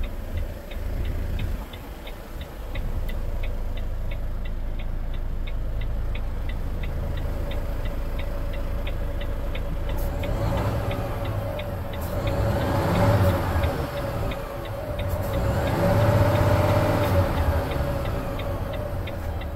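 Volvo FH 460's 13-litre six-cylinder diesel running in the cab with the hazard-light relay ticking steadily, about three ticks a second. In the second half the engine is revved twice, each rev rising and falling away.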